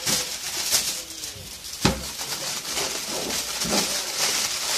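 Aluminium foil being handled and wrapped around food, rustling and crinkling in short bursts, with one sharp knock just under two seconds in.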